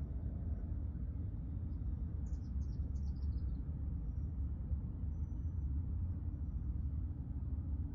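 Steady low rumble with faint, high bird calls over it: a quick run of about six falling notes a little over two seconds in, and thin high whistles here and there.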